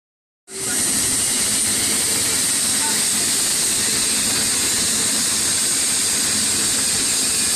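Loud, steady, high-pitched industrial hiss with a faint low hum beneath, cutting in abruptly about half a second in and running unchanged.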